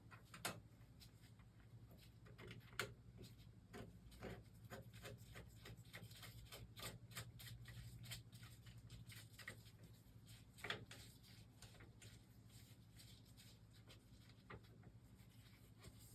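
Faint, scattered clicks, taps and rubbing of hand tools on small metal burner parts as the oil burner's electrode and nozzle assembly is tightened and refitted, over a low steady hum; a few sharper clicks stand out, one near the start, one about three seconds in and one past the ten-second mark.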